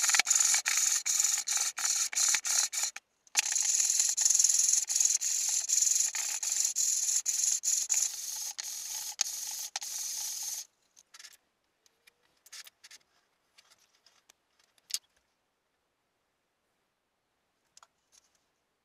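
An MDF box rubbed back and forth by hand over a sanding disc laid flat on an MDF sheet, sanding its edges. The strokes come quickly, about three a second, with a short break about three seconds in. They stop about ten and a half seconds in, leaving only a few faint clicks.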